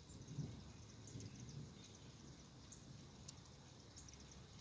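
Near silence outdoors: faint, short high chirps over a low rumble that swells briefly about half a second in.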